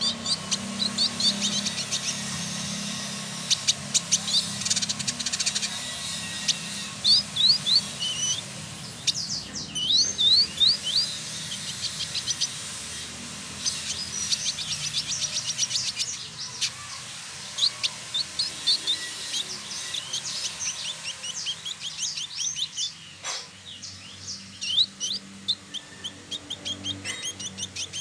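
Male village indigobird singing: rapid runs of high chirps, some fast trills and short down-slurred notes, broken by brief pauses.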